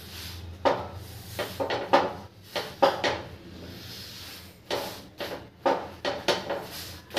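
A hand patting and pressing a roti on a hot iron tava to puff it up: a series of short, sharp slaps at irregular intervals, roughly one or two a second, over a steady low hum.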